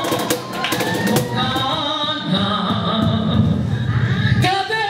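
A woman singing a melody into a microphone, accompanied by a cajón.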